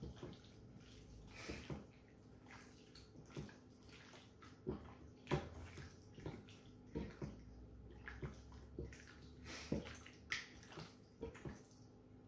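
Raw chicken breast slices coated in olive oil and spices being squeezed and kneaded by hand on a plate for marinating: irregular short smacks of the oily meat, a few each second, over a faint steady hum.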